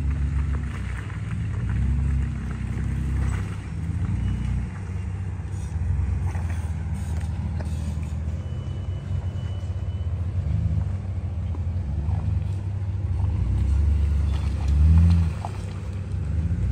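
Two-door Jeep's engine running low and deep, revving up and easing off every few seconds as it crawls along an off-road trail.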